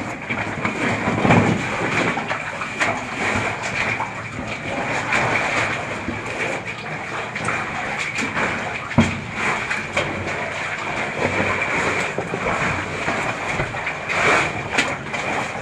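Cavers moving through a narrow cave passage: continuous rustling and scraping of oversuits and a tackle bag against rock, with scattered knocks and one sharper knock about nine seconds in.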